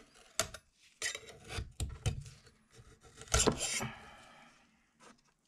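Metal scraper working a cured resin 3D print and its supports off the printer's metal build plate: a run of short scrapes and clicks, the loudest about three and a half seconds in.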